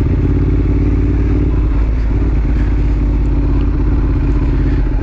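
Exhaust of a 2014 Ducati Monster 1200 S, a 1198 cc L-twin, running at low, steady revs while the bike is ridden slowly.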